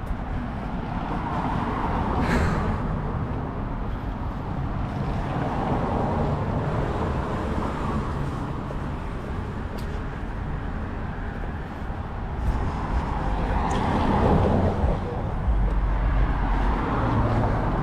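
Street traffic: several cars passing one after another on a road, the tyre and engine noise of each swelling and fading away.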